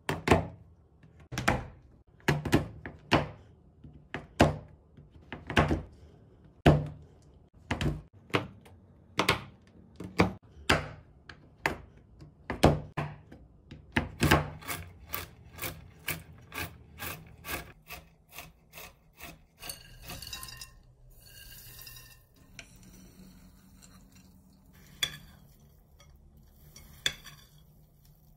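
Kitchen knife chopping a chocolate bar on a bamboo cutting board: sharp chops, each with a dull knock of the board, about one a second, then quicker, around three a second. For the last several seconds, softer scraping and rubbing.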